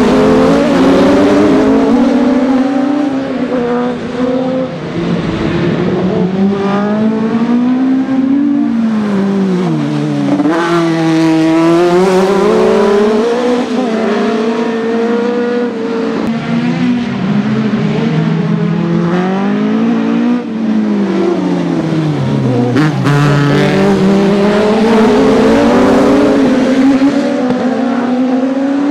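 Several autocross buggies' engines revving hard together. The pitch climbs under acceleration and drops back at each lift or gear change, again and again, as the buggies chase each other through the corners.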